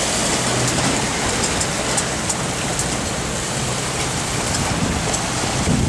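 Steady rush of wind and water: wind buffeting the microphone over waves breaking and spraying along a sailboat's hull as it moves through rough sea.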